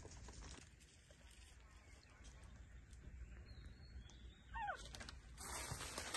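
Faint background, then about four and a half seconds in a brief falling squeal from a baby monkey, followed near the end by a steady rush of hissing noise.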